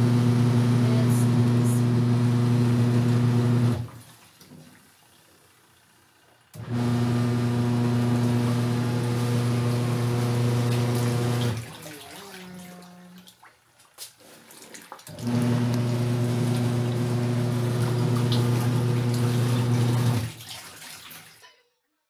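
Sharp twin-tub washing machine's wash motor running with a steady hum while the clothes slosh in the water. It runs three times for about four to five seconds each, stopping briefly in between as the pulsator changes direction.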